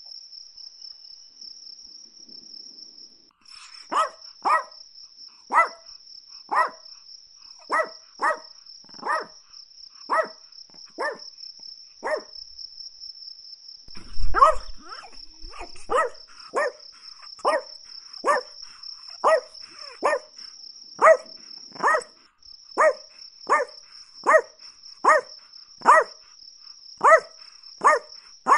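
A Chihuahua barking in short, sharp yaps about once a second, sometimes in quick pairs, starting a few seconds in. A steady high-pitched trill runs behind the barks, and a low thump sounds about halfway through.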